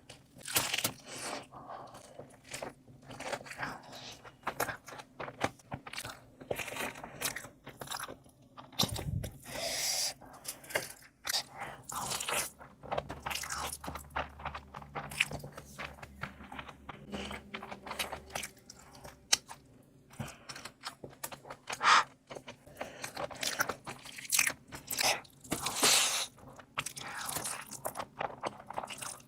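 Close-miked eating: a person biting and chewing crunchy food, a dense, irregular run of crisp crunches and mouth sounds.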